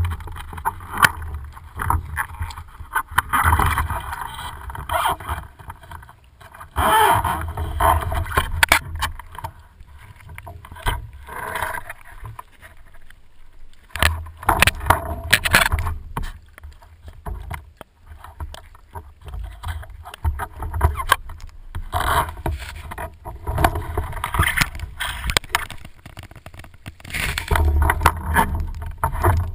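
Water sloshing and splashing around a speargun-mounted action camera at the sea surface, in irregular swishes and surges over a low rumble.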